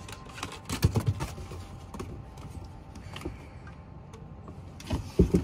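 Irregular clicks and knocks of dog claws and paws scrabbling on wooden deck boards as a dachshund puppy plays around a Bernese mountain dog, bunched into two flurries, about a second in and near the end.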